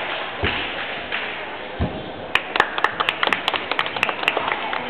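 Background chatter of a crowd in a large hall, with two dull thumps in the first two seconds, then a rapid, irregular run of sharp clicks, about five a second, for roughly two seconds.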